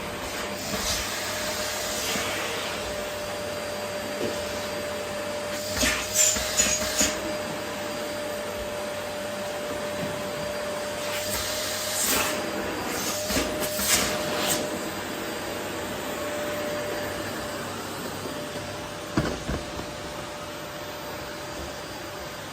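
Vacuum cleaner running steadily with a held whine, sucking up rose petals. Two louder spells of rattling and scraping come about six seconds in and again around twelve to fourteen seconds, and there is a single sharp knock near the end.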